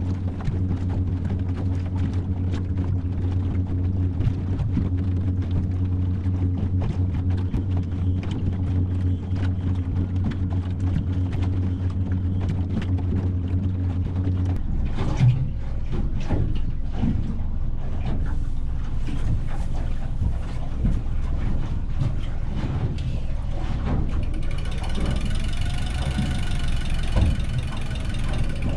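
Boat motor running steadily at trolling speed, heard from inside the cabin as a low hum. The hum drops away about halfway through, leaving water and hull noise with scattered knocks. Near the end a high, fast-pulsing sound comes in.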